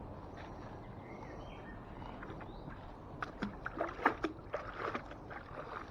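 A fishing magnet on its rope being hauled out of canal water: splashing and dripping, with a run of short knocks and clicks over a couple of seconds about halfway through.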